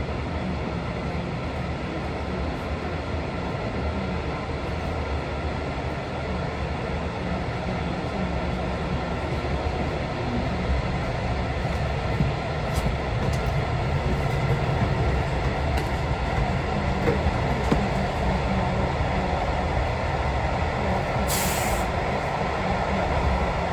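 Passenger train running along the track: a steady rumble and rolling wheel noise that grows a little louder about halfway through, with a brief hiss near the end.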